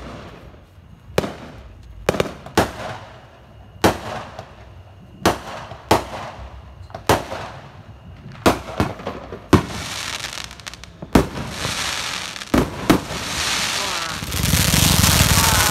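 Aerial fireworks bursting overhead: a string of sharp bangs at uneven spacing, roughly one a second. Near the end they give way to a loud, dense crackling as crackle stars fill the sky.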